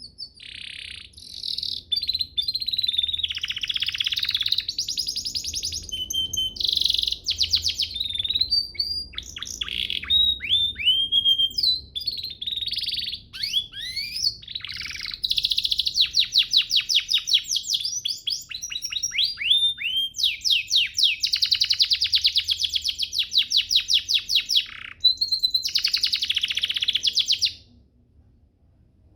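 Domestic canary singing a long, continuous song of rapid trills and runs of falling whistled notes, with brief pauses. The song stops abruptly near the end.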